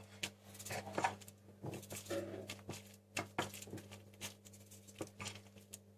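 Homemade glue-and-detergent slime being kneaded and pressed on a plate, making irregular sticky clicks and squelches with a couple of brief squeaks, over a steady low electrical hum.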